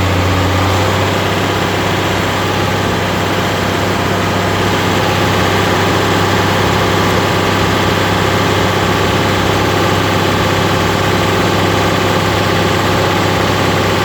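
Farmall 706 tractor's engine running steadily, its note shifting slightly about a second in.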